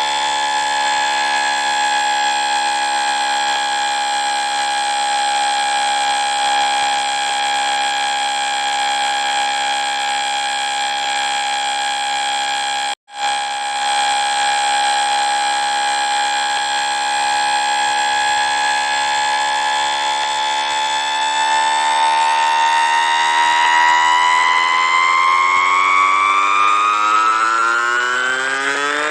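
Electronic emergency-alert alarm tone for an earthquake: a harsh, steady buzzing tone with many overtones. It cuts out for an instant about halfway through, and in the last several seconds its pitch begins to bend and slide.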